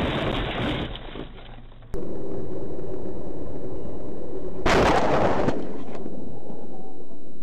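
Vehicle collision sounds in dashcam audio: a loud crashing burst at the start and a second one about five seconds in, over steady car and road noise.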